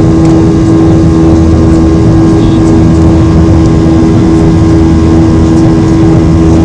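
Boeing 737-800 cabin noise in flight shortly after takeoff: the steady, loud drone of its CFM56 turbofan engines and rushing air, with a constant hum tone running through it.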